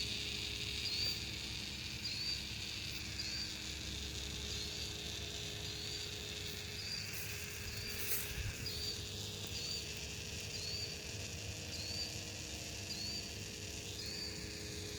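A strange sucking sound from a flooded street: a steady hiss with a short, high squeak repeating about every second and a bit.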